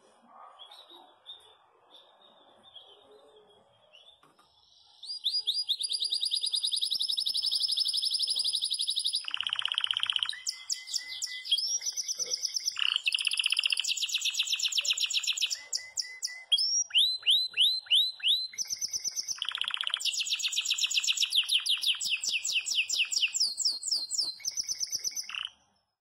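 Domestic canary (a Brazilian 'Belgian canary' of the campainha song type) in full song: long runs of fast, even trills and rolls, with a few quick falling notes, starting about five seconds in after a quiet start and cutting off abruptly just before the end.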